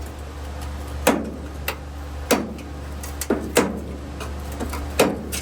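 Irregular clicks and light knocks, about six in a few seconds, of hard plastic and metal parts being handled while a tail-light bulb holder is worked out of its lamp housing, over a steady low hum.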